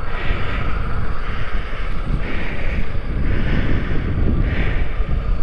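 Heavy wind buffeting the microphone, with a rushing hiss that swells and fades about once a second.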